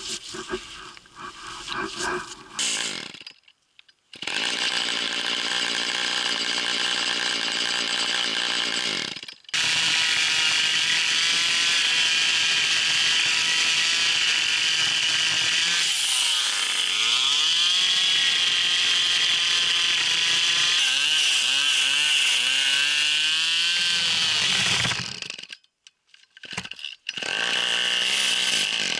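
Two-stroke chainsaw engine running loudly at a steady speed, broken by a few abrupt cuts. Past the middle its pitch sags and climbs back, and near the end it is revved up and down several times.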